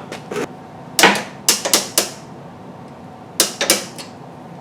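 Hand tools clicking and tapping against metal, about eight sharp separate strikes, some in quick pairs, while working to get a cotter pin out of the rear suspension.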